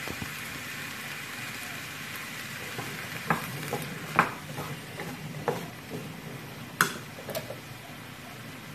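Diced zucchini sizzling in a steel pot while being stirred with a wooden spatula. The spatula knocks and scrapes against the pot a number of times in the middle of the stretch, over the steady hiss of the cooking.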